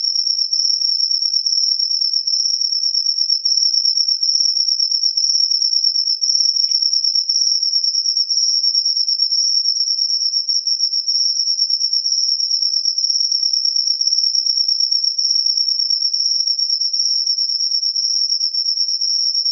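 Crickets chirping in a continuous, rapid high trill that stays steady throughout.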